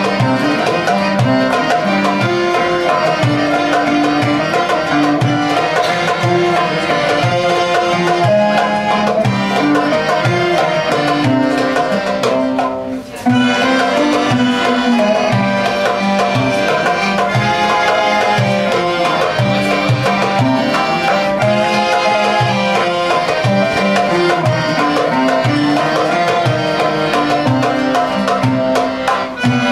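Live Middle Eastern music on oud, piano accordion and hand drum, the drum keeping a steady rhythm under the melody. The music breaks off for a moment about thirteen seconds in, then comes back in.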